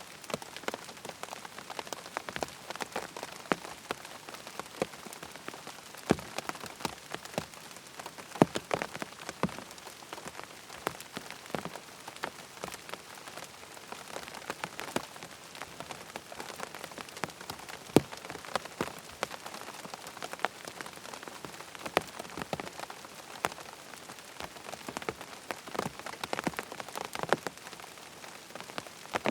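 Rain falling on a tent: a steady patter with many irregular, sharper drop taps on the fabric.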